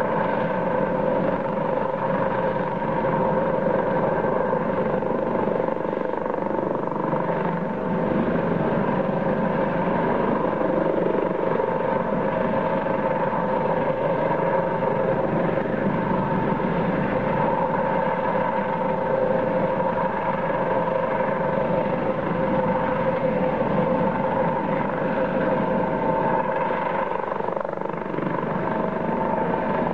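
A helicopter running steadily: a continuous engine-and-rotor drone whose pitch holds constant.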